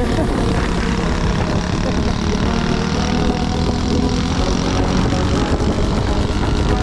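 Tao Tao 85cc mini dirt bike (pit bike) engine running steadily, a buzzing small-engine drone.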